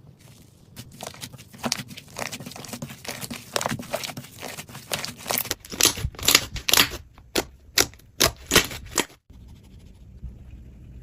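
Slime being worked: a dense run of sticky crackles and pops, thickest from about six to nine seconds in, then stopping abruptly.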